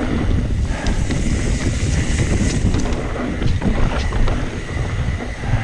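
Mountain bike rolling down a wet dirt-and-rock trail: tyre noise and a constant clatter of knocks and rattles from the bike over the bumps, with wind buffeting the microphone.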